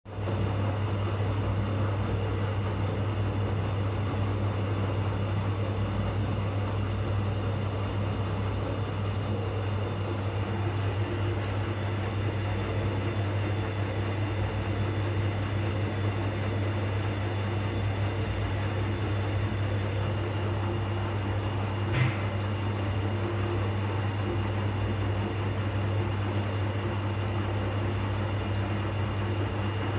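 Arielli AWM-7128N washing machine running its DrumClean 90°C cleaning cycle: a steady low electrical hum with a constant wash of noise over it, and a single sharp click about two-thirds of the way in.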